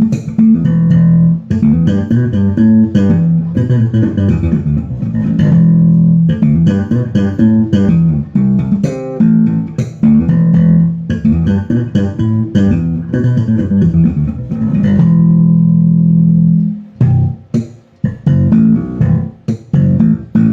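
Electric bass guitar with EMG 45DC pickups played solo: a fast run of plucked notes, then one held note about fifteen seconds in, then a few short separate notes near the end.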